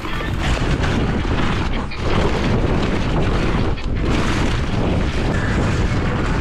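Mountain bike riding a dirt trail: wind buffeting the microphone over a steady low rumble of tyres and frame on the rough ground. The noise is loud and continuous, dropping briefly twice.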